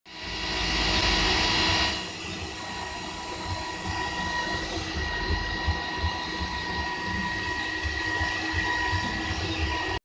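Portable line boring machine running on its electric drive motor: a steady whine over an uneven mechanical rumble. It is louder and hissier for the first two seconds, then settles.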